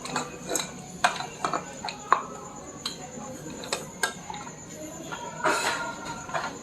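Small hard objects knocking and clinking together in an irregular series of sharp clicks, with a denser clatter about five and a half seconds in.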